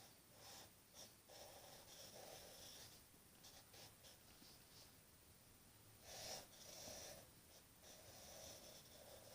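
Faint pencil strokes scratching on paper, in short repeated strokes as letters are written out by hand.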